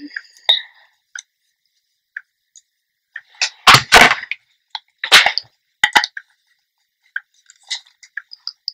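Sharp knocks and clicks of hair-styling tools being handled: a tail comb and a pair of GHD hair straighteners. The loudest come about four and five seconds in, with small ticks and rustles between them.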